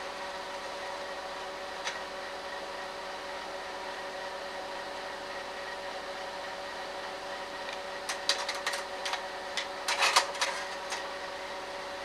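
Slide projector's fan motor humming steadily, with a faint click about two seconds in and a quick run of mechanical clicks and clatter from about eight to eleven seconds in as the slide is changed.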